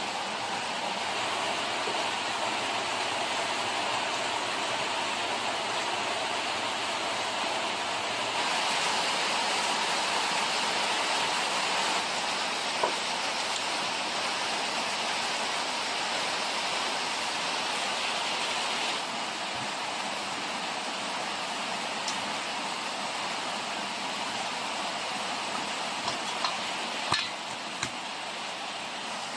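Steady rain falling, a continuous hiss that steps louder about eight seconds in and drops back around nineteen seconds. Near the end come a few sharp knocks of a cleaver cutting vegetables against a steel bowl.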